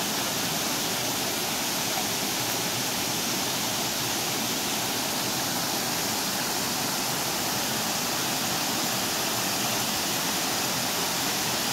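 Waterfall cascading over rocks into a mountain stream: a steady, unbroken rush of falling water.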